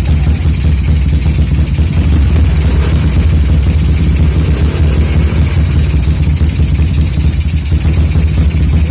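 Small motorcycle engine on a PWK UK30 carburettor running steadily. The carburettor's jets are too large, which the owner says makes it run breathy and lacking power ('ngowos') and burn a lot of fuel.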